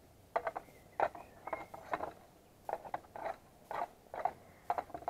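Knife blade scraping and clicking against the bottom of a metal mess tin in a dozen or so short, irregular strokes, as a burger stuck to the tin is prised loose.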